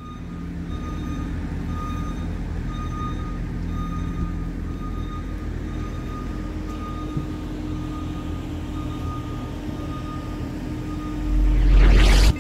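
Street traffic: a heavy vehicle's engine running steadily, with a faint high beep repeating over it. Near the end a loud rushing swell builds for about a second and cuts off suddenly.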